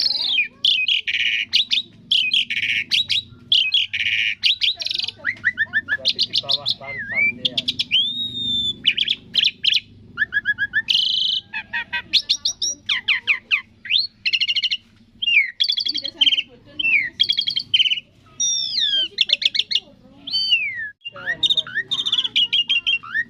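Asian pied starling (jalak suren) singing a long, varied song of rapid chirps, quick trills and clear whistles, some sliding up and some down, with brief pauses between phrases.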